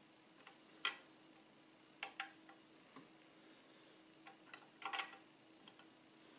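Light, irregular metallic clicks and taps from fingers handling the small metal parts in the bobbin area of a Singer 401 sewing machine. A quick cluster of clicks comes about five seconds in.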